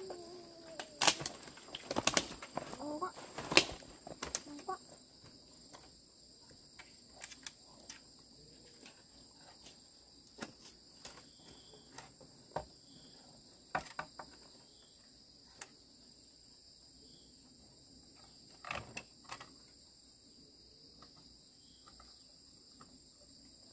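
Insects chirring in a steady high drone, with scattered rustles and snaps of leaves and twigs, most of them in the first few seconds.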